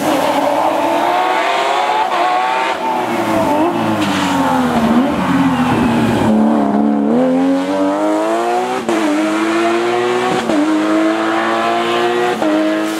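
Porsche 911 rally car's flat-six engine passing at racing speed. Its pitch falls as the car slows into the bend. It then revs hard as the car accelerates away, changing up three times in the last few seconds.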